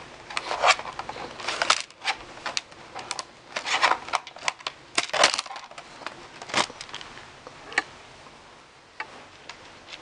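Plastic bottom access panel of an Acer Aspire V3-771G laptop being pried up off the chassis: a run of irregular plastic clicks and snaps as its clips let go, fewer and fainter in the last few seconds.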